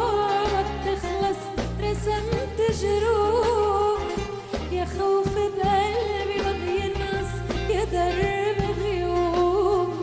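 Arabic song music with a steady bass beat under an ornamented, wavering melody line.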